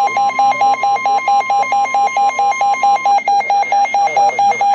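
Weather radio receiver's alert alarm beeping rapidly, about five beeps a second, set off by an incoming severe thunderstorm warning. A steady alert tone sounds faintly underneath until about three seconds in.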